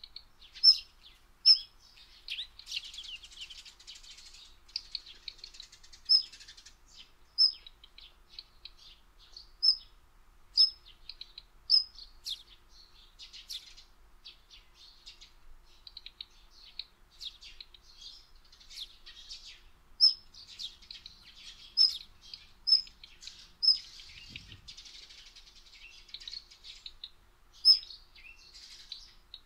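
Small songbirds chirping and singing: loud, sharp high chirps repeated every second or two, over softer twittering.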